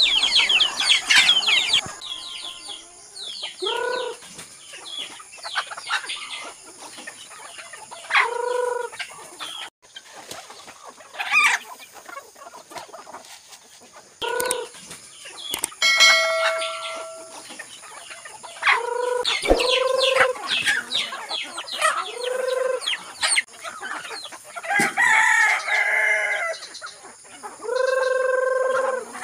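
Flock of free-range native chickens clucking and calling, with drawn-out calls of half a second to a second every few seconds, the longest near the end, over scattered short high chirps.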